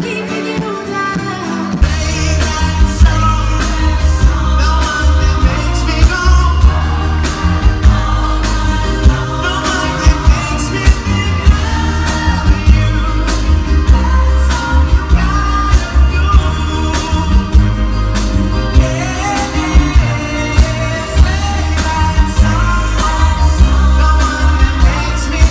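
Live pop-rock band playing with a lead singer, loud through the venue's sound system. The drums and bass come in about two seconds in.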